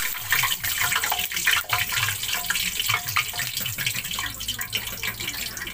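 Hot oil sizzling and crackling around a large chunk of pork belly being deep-fried in a wok for lechon kawali, its skin fried crisp and done.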